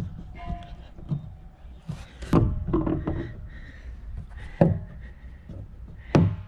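Irregular knocks and clunks of a steel adjustable wrench and hands working a PVC tee fitting on a plastic rain barrel's bulkhead fitting. The sharpest knocks come about two seconds in, past halfway, and near the end.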